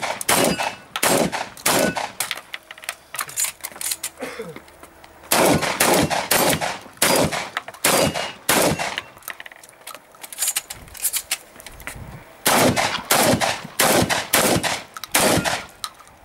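Shotgun fired rapidly in three quick strings of shots with short pauses between them.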